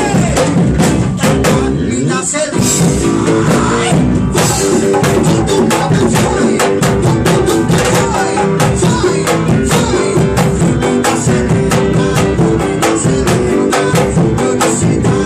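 Band music playing steadily: a song with drum kit, percussion and guitar keeping a dense, even beat.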